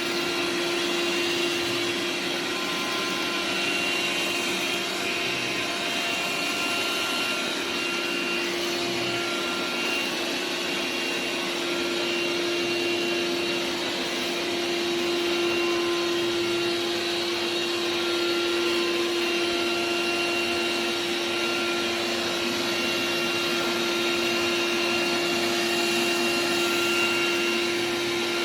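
Xiaomi Robot Vacuum X20 Pro robot vacuum running steadily: a constant hum with a steady low tone, and fainter higher whines that come and go.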